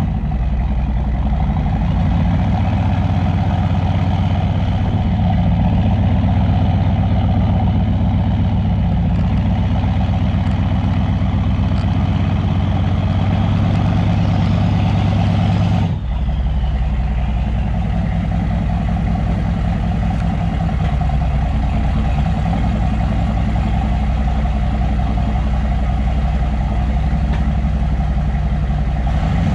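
Chevy K2500's 6.5-litre turbo diesel V8 idling steadily through a 4-inch straight-pipe exhaust. About halfway through the sound breaks briefly and carries on with a slightly different note.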